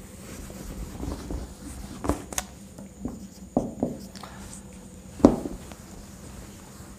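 A whiteboard being wiped with a cloth duster and written on with a marker: soft rubbing with a few short knocks and taps against the board, the loudest about five seconds in.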